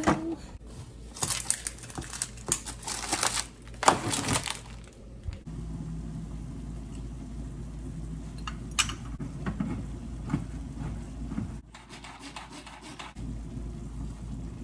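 A metal utensil clattering and scraping against a cooking pot for a few seconds, then a steady low hum with a few light clicks of kitchenware.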